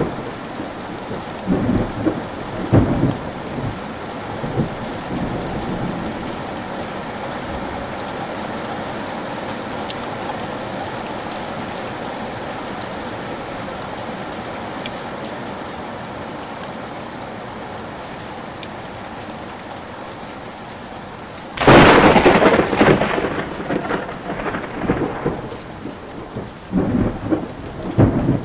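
Rain falling steadily through a thunderstorm. Thunder rumbles in the first few seconds; then, about three-quarters of the way through, a sudden loud thunderclap, which rolls on after it in uneven bursts.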